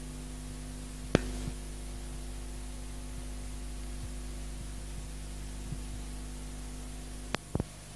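Steady electrical mains hum with a faint hiss. One sharp click comes about a second in, and a quick cluster of two or three clicks comes near the end.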